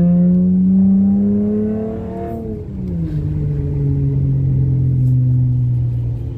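Dodge Challenger SXT's V6, breathing through a new Spectre cold air intake, pulling up in revs for about two seconds. The pitch then drops sharply at an upshift and sinks slowly as the revs ease off.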